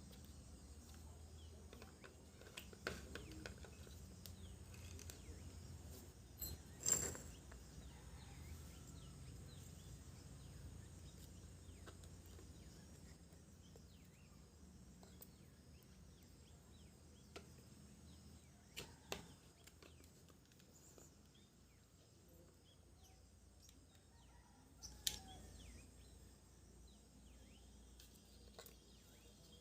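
Near silence with a faint low hum and a few scattered sharp clicks or taps, the loudest about seven seconds in.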